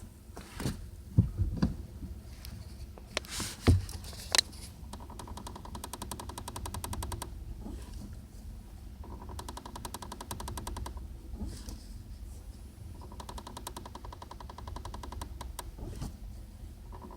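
Clutch of a Kia Ceed JD squeaking: a rapid, rasping squeak that comes in four spells of two to three seconds each, starting about five seconds in, over a low steady hum. A few sharp knocks and clicks come first. This is a squeak that the owner says appears only when the car is hot.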